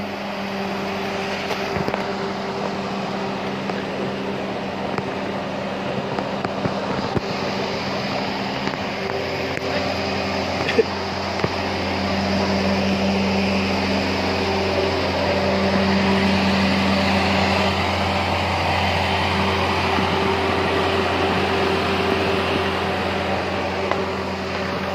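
Steady low mechanical hum of a running engine or machine, a constant drone that grows a little louder about halfway through, with a few light knocks.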